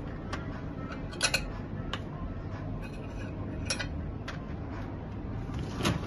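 Cutlery and dishes clinking against each other and the wire racks as a dishwasher is loaded: a handful of sharp separate clinks, the loudest a quick cluster about a second in, over a steady low hum.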